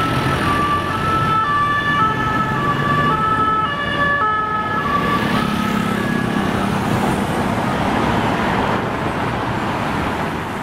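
French police two-tone siren on an unmarked Renault Mégane Estate, switching steadily between a high and a low note about once every half second or so, over the noise of heavy city traffic. The siren fades out about halfway through as the car moves away, leaving the traffic noise.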